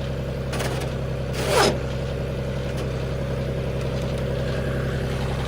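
Vehicle engine idling steadily, with two short scraping bursts of noise about half a second and a second and a half in.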